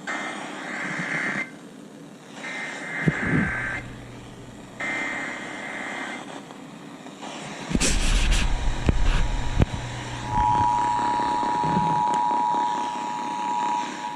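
An Emergency Alert System header: three buzzing bursts of two-tone digital data, each about a second long. A couple of seconds of rough radio static and rumble follow, then, about ten seconds in, the steady two-tone EAS attention signal begins and holds, announcing a new warning.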